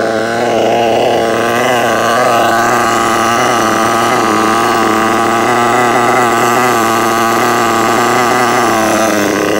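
A Losi 8ight-T 1/8-scale RC truggy's .28 nitro engine idling steadily at close range, its pitch wavering slightly.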